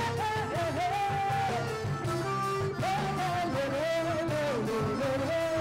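Live band playing an upbeat instrumental break: a bending electric guitar melody over bass and a steady drum-kit beat.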